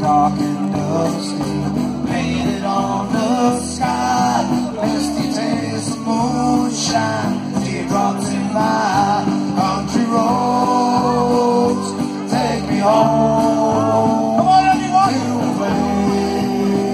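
Live country band: a man singing lead over strummed acoustic guitar and upright double bass, played through a PA.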